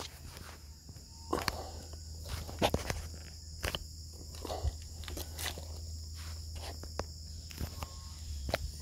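Bicycle rolling along a wet gravel trail, with scattered clicks and knocks from the tyres and bike. A steady, high insect trill runs underneath.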